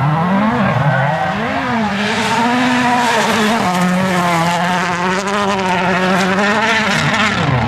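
Toyota Yaris WRC rally car's 1.6-litre turbocharged four-cylinder engine at high revs over gravel. Its pitch dips and climbs again with each gear change and lift, then falls sharply near the end as the driver backs off.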